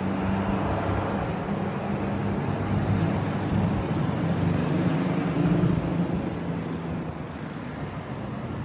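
A motor vehicle's engine running on the road, growing louder to about five and a half seconds in and then fading, over a steady wash of traffic.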